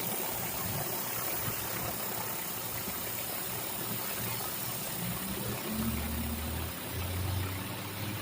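Commercial pressure washer running steadily while its surface cleaner sprays water onto concrete, a constant hiss over a low engine drone. The engine note grows stronger about six seconds in.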